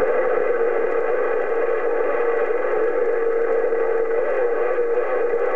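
CB radio speaker carrying a keyed-up AM transmission: a steady, slightly wavering tone with hiss and no voice.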